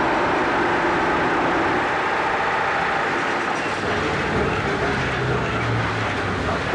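Block-making machine running with a steady, loud mechanical rattle and clatter, a low hum coming up about four seconds in.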